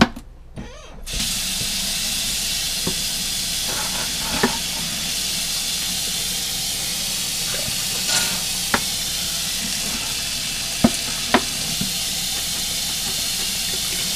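Kitchen tap running steadily into the sink, starting about a second in, with a few sharp knocks of a bottle or container against the sink while old sauce is rinsed out.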